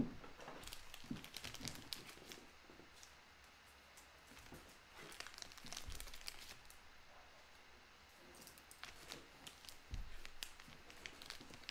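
Faint crinkling and rustling of plastic card-pack wrappers and trading cards being handled, with scattered light clicks and two louder stretches of rustling, about five and about ten seconds in.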